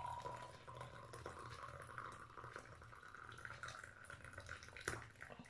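Hot spiced herbal drink pouring in a thin stream from a saucepan into a glass jar: a faint trickle with a thin ringing tone that rises in pitch as the jar fills, then holds. A light click comes near the end.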